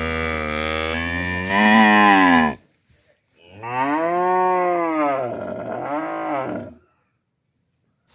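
Cow mooing: two long moos, the first loud and cutting off about two and a half seconds in, the second rising then falling in pitch with a shorter swell near its end.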